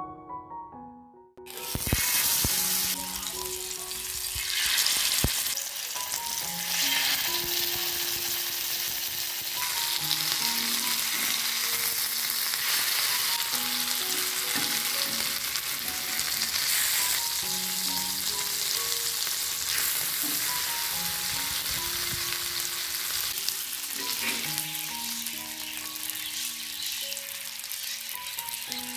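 Masala-coated fish shallow-frying in oil on a tava, a steady sizzle that starts suddenly about a second and a half in, with a couple of sharp knocks in the first few seconds. Soft piano music plays underneath.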